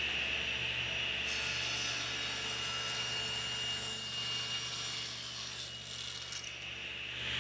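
Table saw ripping a Douglas fir 2x4 lengthwise along the fence, with a steady high whine from the spinning blade. The cutting noise starts about a second in and stops around six and a half seconds, after which the blade keeps spinning free.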